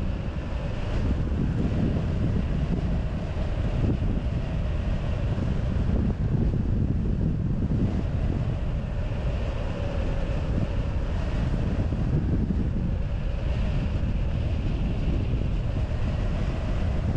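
Rushing airflow of a hang glider in flight buffeting the wing-mounted camera's microphone: a steady low rumble of wind noise with a faint wavering hum above it.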